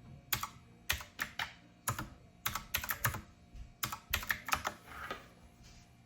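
Keys of a typewriter-style keyboard with round keycaps clicking as they are pressed, an irregular run of about fifteen sharp clicks, some in quick clusters.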